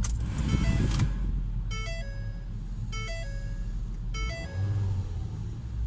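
2010 Ford Focus four-cylinder engine cranking and starting in the first second, then settling into a steady low idle, heard from inside the cabin. The engine is running on freshly replaced motor mounts. A short phrase of electronic tones repeats over it about every second.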